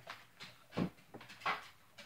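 A few short knocks and rustles of MRE packets being handled and set down on a table, two of them standing out just under a second and about a second and a half in.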